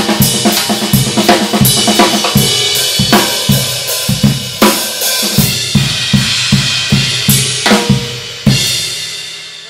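Drum kit groove played with Paiste 2002 Sound Edge 14" hi-hats and a Paiste 2002 22" ride cymbal, over kick drum and snare in a steady stream of strokes. The groove ends on a final cymbal hit about 8.5 seconds in, left to ring out and fade.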